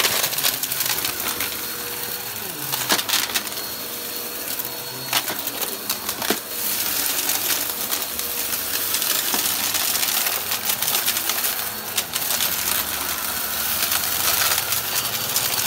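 Upright bagless vacuum cleaner running steadily over carpet, its brushroll sucking up crunchy debris that clicks and crackles sharply and irregularly as it rattles up the tube.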